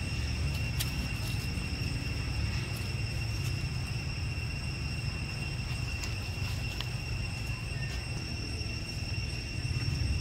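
Outdoor forest ambience: a steady high-pitched insect drone over a constant low rumble, with a few faint light clicks.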